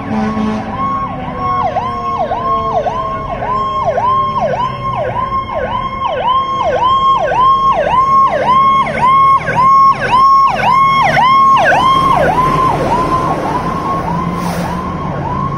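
Fire truck siren in a rapid yelp, each cycle sweeping down in pitch about two to three times a second. In the first half a second, lower siren tone slowly falls in pitch underneath. The siren is loudest a little past the middle as the truck passes, and the sweep changes character about three quarters of the way in.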